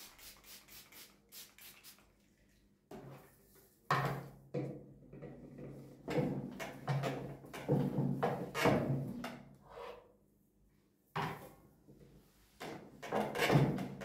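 A hand-held trigger spray bottle pumped about eight times in quick succession, then a cloth wiping a white table top in repeated rubbing strokes.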